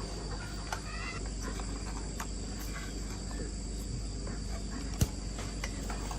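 Steady high-pitched insect chirring over a low background hum, with one sharp click about five seconds in.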